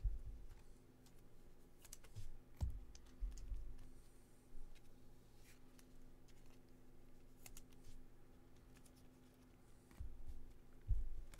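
Scattered light clicks and taps with a few soft thumps, irregular rather than a steady run of typing.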